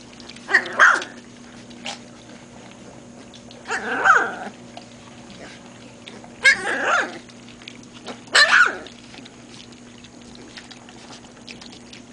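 Young Great Pyrenees puppy yelping and crying: four short, high, wavering cries at irregular intervals.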